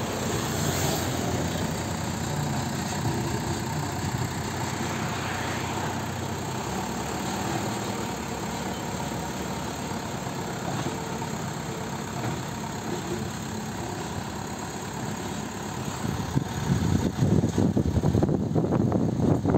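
JCB 3DX backhoe loader's diesel engine idling steadily. About three seconds before the end, a louder, rough low rumble takes over.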